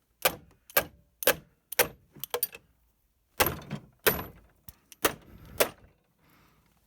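Hand saw cutting through a router's thick plastic case, about two short rasping strokes a second, pausing briefly about halfway through and stopping near the end.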